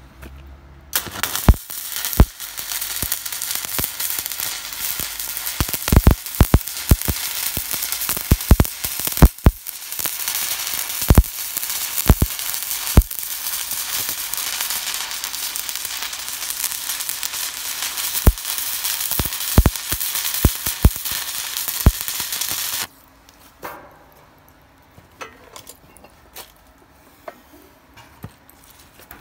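Stick-welding arc from a mini inverter welder burning a 2.5 mm electrode: a steady crackling sizzle with frequent sharp pops, running for about twenty seconds and then cutting off suddenly. A few faint ticks follow.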